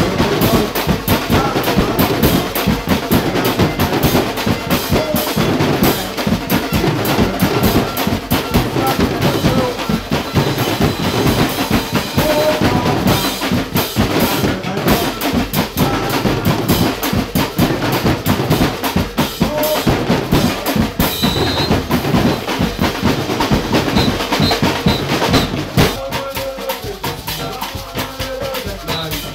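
Carnival percussion band playing live: massed snare and bass drums with a cymbal in a fast, dense beat. About 26 seconds in the drumming thins out and drops in level.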